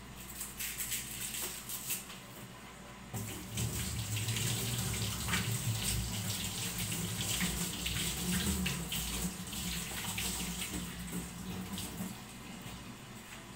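Water running from a kitchen tap into a sink, after a few light clicks; the flow starts about three seconds in and stops about a second and a half before the end.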